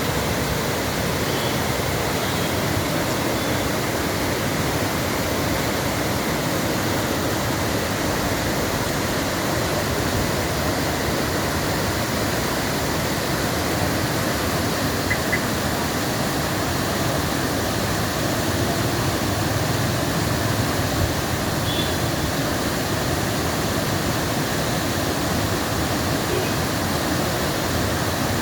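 Charpa waterfall: water falling with a steady, even rush of noise that does not change.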